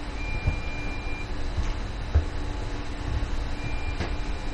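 Engine control panel buzzer beeping intermittently, a steady high tone lasting about a second, sounding twice: the alert that a command transfer is waiting to be accepted at the control station. A steady low hum runs underneath, with a few light knocks.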